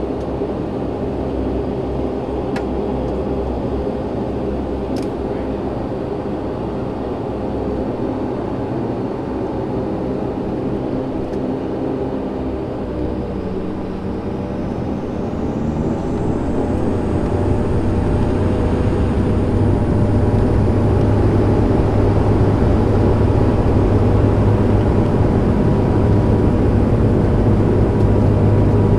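Twin turboprop engines of a De Havilland Dash 8-400, heard from inside the passenger cabin, running steadily while the plane taxis. About halfway through, the engine tone dips and then rises as power comes up, and the sound grows louder with a strong low drone.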